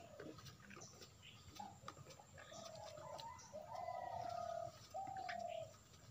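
A dove cooing: several soft, level, hooting calls in the second half, the longest about a second.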